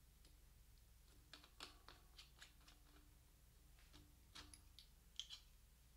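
Faint, scattered clicks and taps of hands working at a bicycle handlebar end to remove clamp-on bull horn bar ends.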